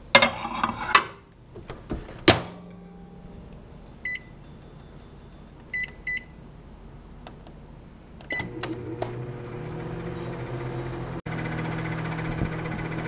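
A plate clatters onto a microwave oven's tray and the door shuts with a sharp click. A few short keypad beeps follow, then the microwave starts and hums steadily as it heats.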